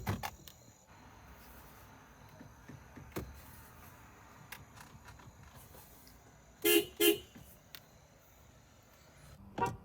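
Car horn giving two short, quick toots about seven seconds in, over a low steady hiss with a few faint clicks.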